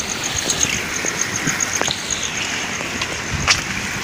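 Steady rain falling, with footsteps splashing on a wet path and scattered knocks. A high chirp repeats about six times a second and fades out about halfway through.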